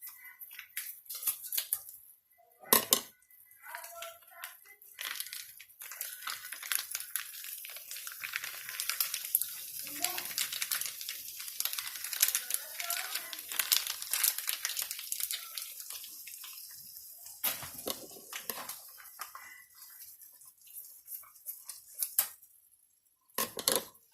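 Plastic sauce packets crinkling and being torn open, a dense crackle through the middle stretch, with a few sharp knocks.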